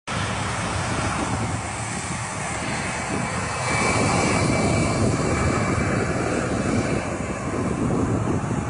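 Boeing 737-800's CFM56-7B turbofan engines at takeoff thrust: a steady, loud rush with a faint high whine, growing a little louder about four seconds in.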